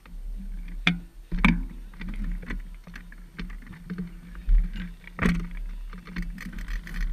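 Recumbent trike pulling away: the chain and crankset click and rattle as it is pedalled, with a few sharp clacks, over a low rumble of tyres rolling on concrete.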